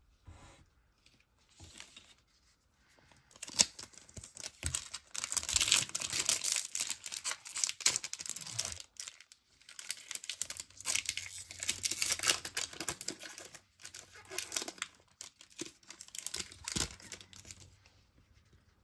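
A trading-card pack wrapper being torn open and crinkled, a dense run of irregular tearing and crackling that starts a few seconds in and dies away near the end.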